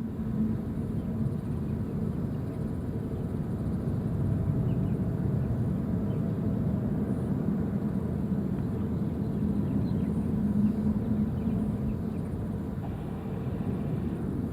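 Low, steady rumble of jet aircraft engines, with a faint hum that swells briefly around ten seconds in.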